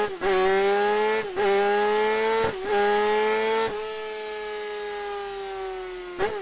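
Kawasaki ZX-10R's inline-four engine revving high, with three short cuts in the note in the first few seconds. After a few seconds it drops off and the revs fall slowly, with one more short cut near the end.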